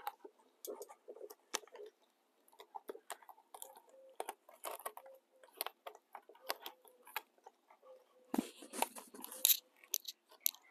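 Gloved hands pressing a new fitting into the base of a tipped-over porcelain toilet: scattered small clicks, creaks and rubbing against the porcelain, with one heavier knock near the end.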